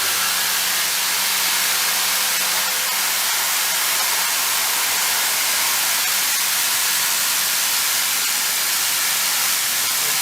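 Steady hiss of spray at a heavy milling machine, with a faint low hum under it.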